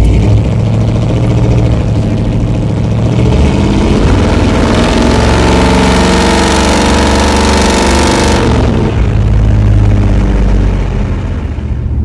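Chevy 454 big-block V8 heard from inside the cab through true 3-inch dual exhaust with knockoff Flowmaster mufflers and headers. It cruises, then accelerates hard from about three seconds in and pulls up through the revs. It lets off after about five seconds and settles back. At the higher revs the owner hears a glass-pack-like chatter from the tailpipes.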